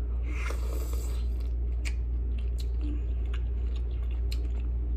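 Close-miked eating of a cooked mussel: a brief noisy bite near the start, then wet clicks and smacks of chewing with the mouth closed. A steady low hum runs underneath.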